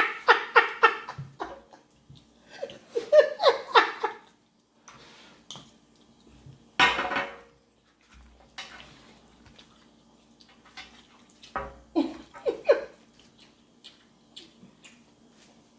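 Laughter during the first few seconds, then eating at a table: forks clinking and scraping on plates, with chewing and mouth sounds. A faint steady hum runs underneath.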